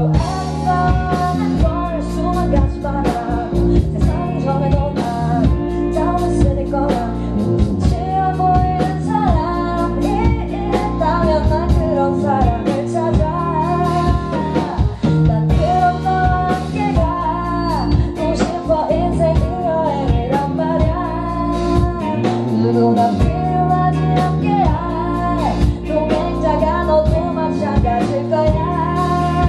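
Live band performance: a woman sings a melody into a handheld microphone over keyboard, electric guitar, bass and drums.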